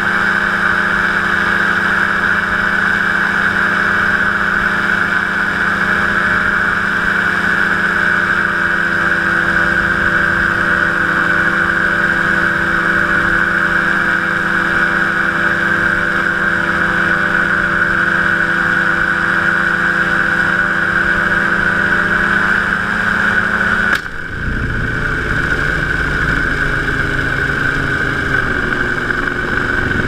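Powered parachute's engine and propeller running steadily at cruise power, a loud drone with a strong high whine. About 24 seconds in the note breaks off suddenly with a click, and the engine runs on at a lower, uneven speed.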